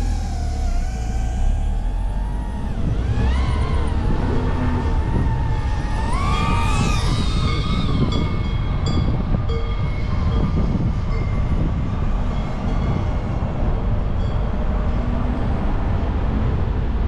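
A moving vehicle's steady low rumble with a wavering whine over it that rises twice, about three and six seconds in.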